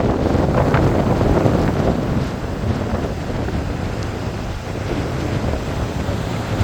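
Wind buffeting the microphone, a heavy low rumble, with the surf of breaking waves underneath.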